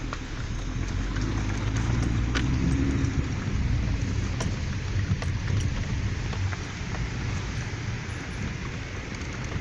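A car driving on a mountain road: a steady engine and tyre rumble with scattered sharp clicks and crackle.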